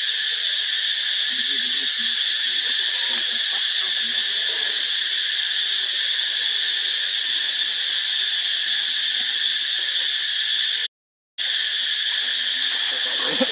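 Steady, high insect chorus droning without a break. It cuts out suddenly for about half a second near the end.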